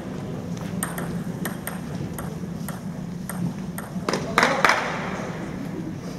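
Table tennis balls clicking irregularly against tables and rackets from rallies around a large gymnasium, over a steady murmur of voices in the hall. A louder burst comes twice in quick succession about four seconds in.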